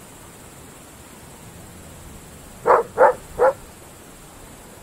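Groenendael Belgian Shepherd dog barking: three quick barks in a row about two and a half seconds in.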